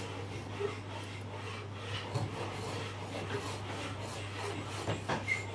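Traditional Chinese wooden frame saw cutting a small block of wood in light, uneven strokes, which turn louder and more regular, about two a second, near the end.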